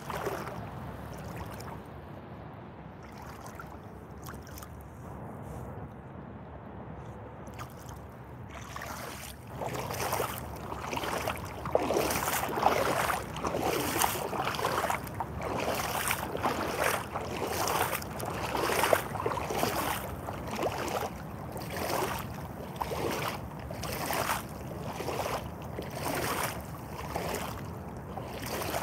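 Rubber boots splashing and sloshing through shallow muddy water. The first several seconds are quieter wading; after that come steady stomping steps, roughly one a second.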